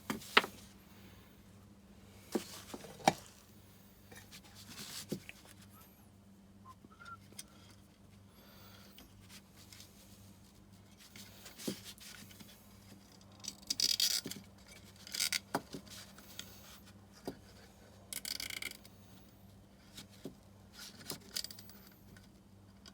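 Plastic cable ties being fitted and pulled tight around a small vacuum hose on an EFI case: scattered clicks and scrapes with a few short zipping rasps, the longest about 14 and 18 seconds in. A faint steady low hum runs underneath.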